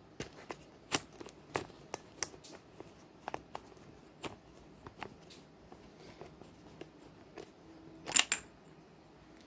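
Scattered light clicks and taps of small objects being handled, with a louder cluster of sharp clicks about eight seconds in.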